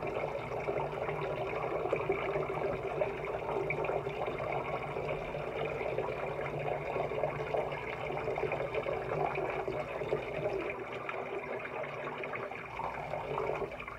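Tap water running steadily into a sink of water, with small splashes and trickles.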